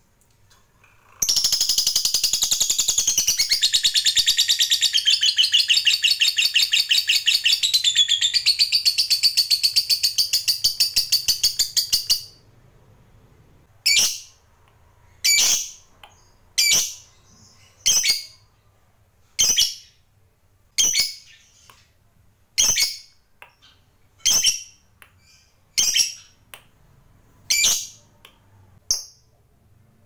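Rosy-faced lovebird (blue colour mutation) giving its 'ngekek' long chatter: a fast, unbroken run of shrill notes lasting about eleven seconds. After a short pause come single sharp chirps, about one every second and a half.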